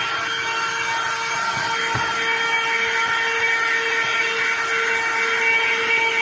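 Cordless handheld portable vacuum cleaner running steadily: a high motor whine over rushing air, with a light knock about two seconds in.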